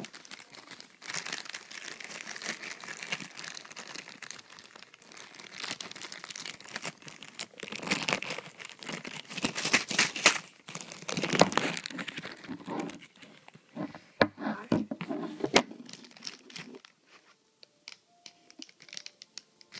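Crinkling and rustling of the packaging holding homemade slime as it is handled and opened to take the slime out, in irregular bouts, dying down to faint handling for the last few seconds.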